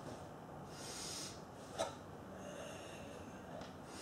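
Sam Chien qi breathing by a kung fu practitioner: two long, audible breaths pushed through the nose and mouth, the second starting about a second after the first ends. A single short sharp click comes between them.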